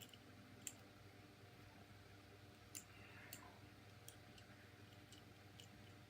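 Faint, scattered clicks of a plastic Transformers action figure's joints and parts being worked by hand during transformation, over a low steady hum.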